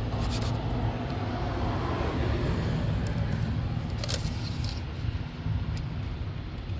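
A steady low engine hum runs throughout, with a few light clicks and scrapes from the oil dipstick being drawn out of its tube.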